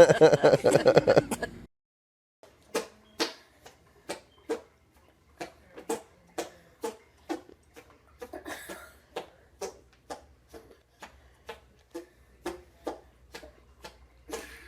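Armpit farts made in quick succession: short pops about two a second, each with a brief low sputter. A loud voice-like sound cuts off about a second and a half in, before the pops begin.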